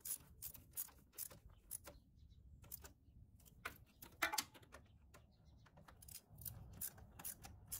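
Faint scattered clicks and light metallic rattles from a socket ratchet and hand tools as the radiator fan's mounting bolts are tightened, with one louder knock about four seconds in.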